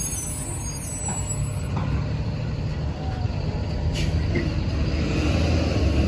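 Low, steady rumble of a bus engine running in street traffic, with a single short click about four seconds in.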